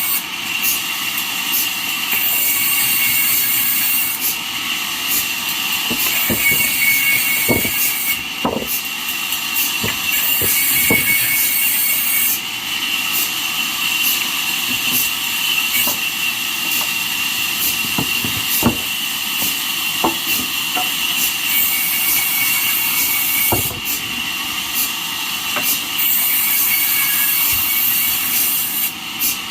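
Band sawmill cutting through jackfruit wood: a steady, loud sawing hiss with a high steady whine running through it, and a few light knocks scattered through the cut.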